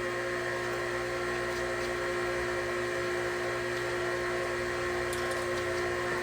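Steady machine hum with several fixed tones, unchanging throughout.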